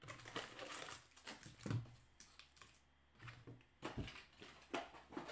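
Sealed trading-card packs being set down and arranged on a mat: a run of light, irregular taps and crinkles, with a heavier thump about four seconds in.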